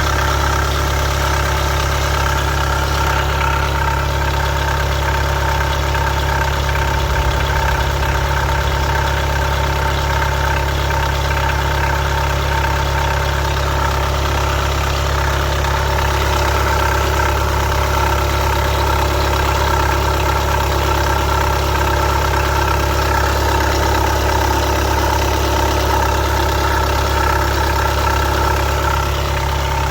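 Volkswagen Golf Mk7 idling, with a steady high-pitched squeak running over the engine hum, heard through the opened wheel arch.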